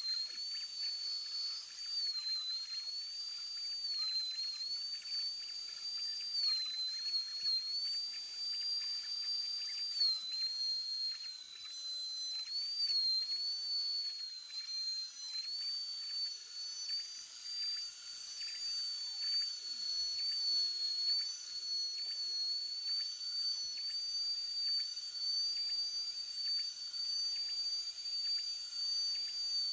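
Trim router spindle on a homemade wooden CNC machine, running at a high steady whine while the bit carves letters into a wooden board. The pitch dips slightly and recovers several times as the cut takes load.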